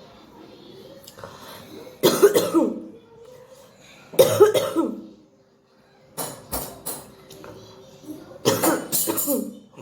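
A woman coughing deliberately in four bouts about two seconds apart, the third made of three quick, sharp hacks. The coughs are dry and bring up no phlegm, with no rattle in the chest: the cold behind them has cleared.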